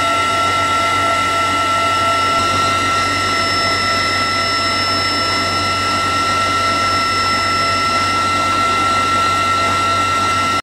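Loud, steady in-flight cabin noise of an MH-53E Sea Dragon helicopter heard with the rear ramp open: engine and rotor noise under several constant high whines. A higher whine joins about three seconds in and drops out about eight seconds in.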